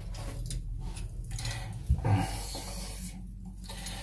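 A man breathing hard from exertion in a series of heavy, noisy breaths, with a single sharp knock about two seconds in.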